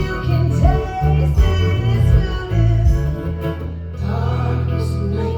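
Live music: guitar-led song with a steady bass line and a singing voice.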